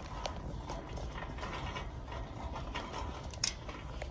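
Wire shopping cart being pushed across a store floor: a low rolling rumble from the wheels with the metal basket rattling in small irregular clicks, and one sharper clack about three and a half seconds in.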